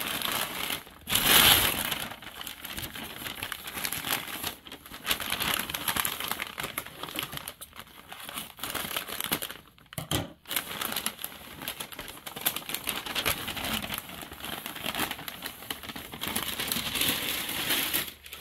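Stiff packing paper crinkling and rustling as it is unwrapped by hand, in stretches with a couple of brief pauses, loudest about a second and a half in.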